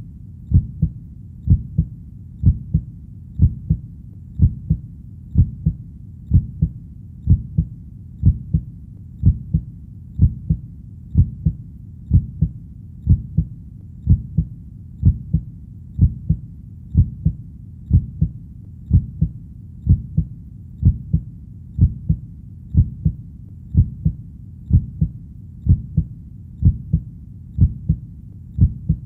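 Heartbeat: a steady, even rhythm of paired low thuds ('lub-dub'), about one beat a second.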